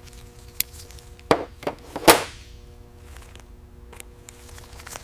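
A series of separate sharp knocks and taps, the loudest about two seconds in with a ringing tail, over a steady low hum.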